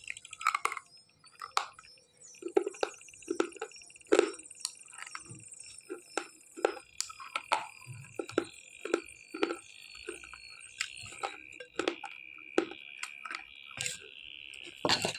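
Slate pencil bitten and chewed close to the mouth, giving a long run of sharp, irregular crunches.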